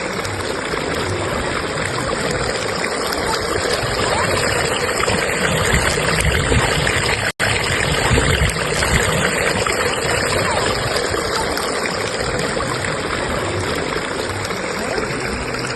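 River current rushing steadily over rocks, a continuous even wash of flowing water, cut by a split-second dropout to silence about halfway through.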